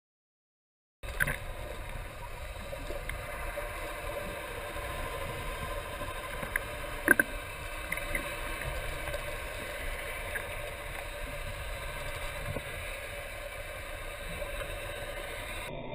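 Underwater ambience starting about a second in: a steady rushing noise with scattered faint clicks and one sharp knock about seven seconds in.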